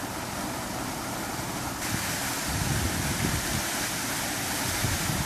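Wind buffeting the microphone over a steady rushing hiss, the low rumbles growing stronger about two seconds in.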